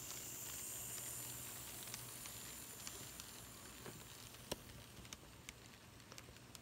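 Kato N scale ALCO PA-1 locomotives running past with a passenger train: a faint steady hum and hiss from the motor and wheels on the track, with scattered light clicks, slowly fading as the train moves off.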